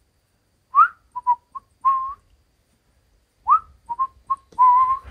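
A person whistling a call to puppies, the phrase given twice: a rising swoop, a few short notes, then a held, slightly wavering note.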